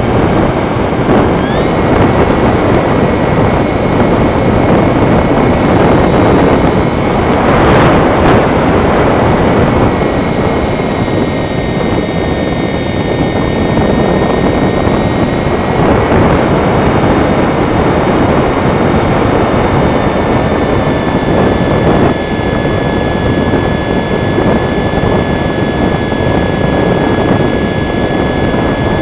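Electric motor of a foam HK Fox model glider whining steadily in flight, under heavy wind noise on the microphone. The whine steps up in pitch about a second and a half in, sags slowly through the second half, and rises again right at the end.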